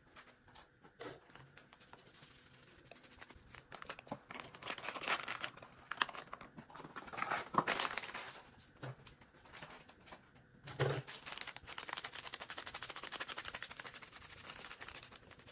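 Small plastic sachet crinkling and rustling in the hands as it is opened and handled, in irregular bursts that turn into a denser, steady crackle for the last few seconds.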